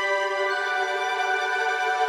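Background music: sustained, held chords that change to new notes about half a second in.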